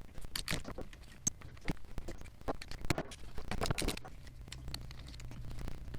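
Faint, irregular clicks and scrapes of hand tools and small bolts against the metal engine cases.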